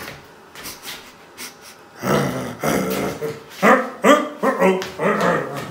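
A dog whining and yelping in a run of short pitched cries that starts about two seconds in.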